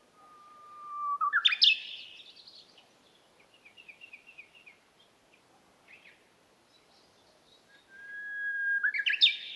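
A songbird singing in the early morning: two phrases, each a long steady whistled note that breaks into a quick rising flourish, one at the start and one near the end. Softer twittering comes between them.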